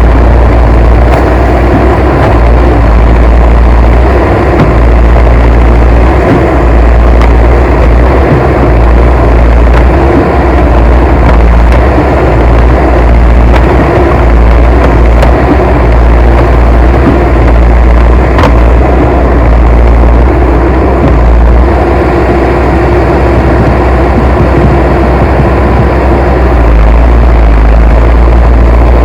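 Heavy machine engine running steadily as a loud, low, continuous drone with no clear revving.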